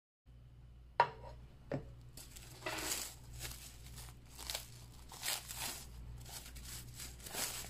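Plastic cling film crinkling and rustling in quick irregular bursts as hands peel it off a wrapped loaf cake, starting about two seconds in. A sharp knock about a second in, the loudest sound, and a softer one just after.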